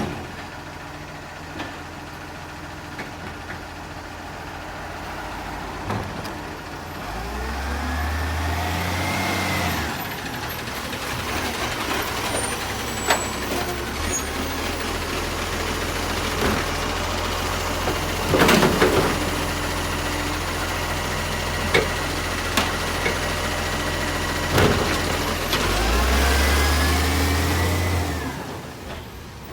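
Garbage truck engine idling, then revving up twice for several seconds while a rising whine sweeps up with each rev. Sharp clanks and knocks come in between, the loudest about halfway through.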